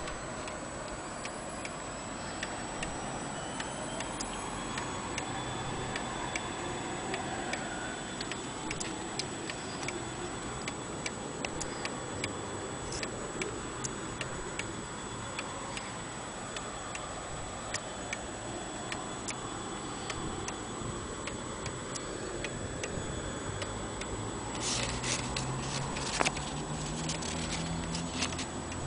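Hermle wall clock's pendulum movement ticking steadily. Near the end, paper rustles as a leaflet is handled.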